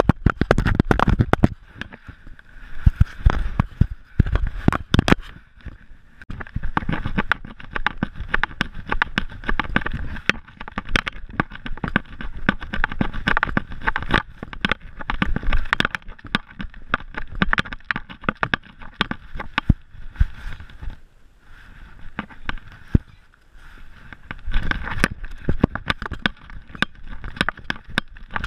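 Handling noise of a GoPro strapped to a moving animal: irregular knocks, scraping and rattling of the camera and its mount, louder in clusters near the start and again near the end.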